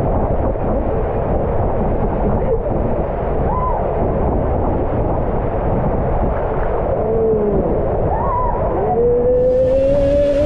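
Indoor waterpark din: a steady loud rush of water, with people's voices calling out now and then in drawn-out rising and falling cries, one long held cry near the end.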